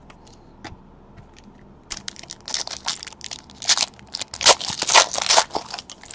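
Foil wrapper of a trading card pack crinkling and tearing as it is ripped open by hand, a few light clicks first, then a dense crackle starting about two seconds in and loudest near the end.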